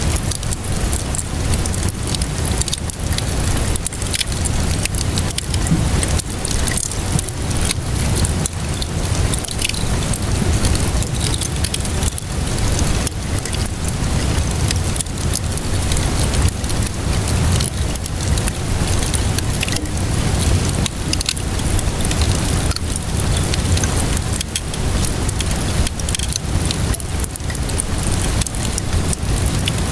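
Wood fire crackling with frequent sharp pops and snaps over a steady wash of rainfall, with a constant low rumble underneath.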